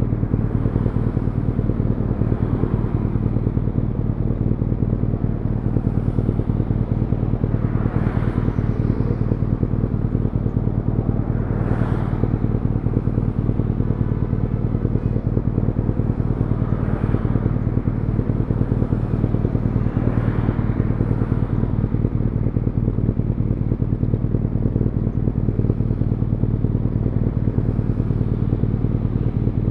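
BMW R nineT Urban GS's air/oil-cooled boxer twin idling steadily through its stock muffler. Cars pass close by a few times, about 8, 12, 17 and 20 seconds in.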